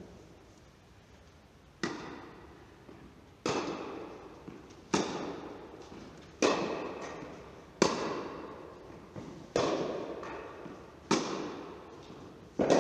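Tennis ball being struck back and forth in a relaxed groundstroke rally: sharp pops about every one and a half seconds, each ringing out in the echo of a large indoor tennis hall.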